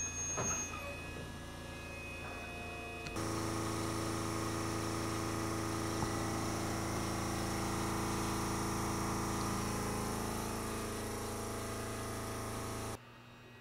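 Underfloor equipment of a stopped electric railcar humming steadily with many even tones. A louder machine cuts in abruptly about three seconds in, runs evenly, and cuts out abruptly near the end.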